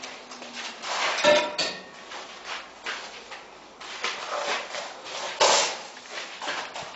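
Wall plastering machine clattering as it works, with irregular metallic knocks and scraping. It gives two louder clanks, about a second in and again about five and a half seconds in.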